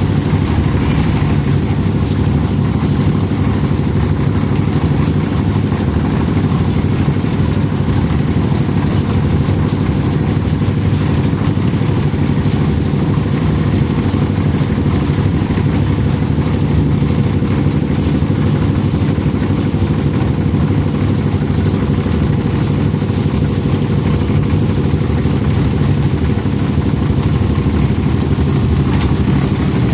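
Tractor diesel engine running steadily at an even speed, with a few faint clicks in the middle.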